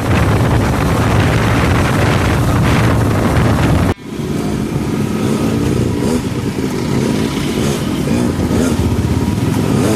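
Motor vehicle running with loud road and wind noise, heard from on board, in two clips joined by a sudden cut about four seconds in. The second clip carries a steady engine hum.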